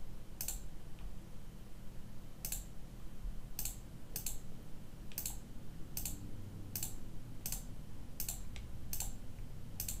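Computer clicking: about a dozen single sharp clicks, one near the start, then a pause, then clicks coming roughly every half second to a second, over a faint steady low hum.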